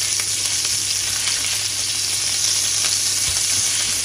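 Tomato purée, pepper purée and garlic frying in hot olive oil with a steady sizzle, stirred with a wooden spatula with a few faint taps.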